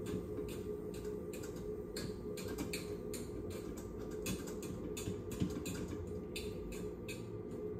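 A fork turning over cooked rice in a pot: a run of short scraping strokes, about two or three a second, over a steady low hum.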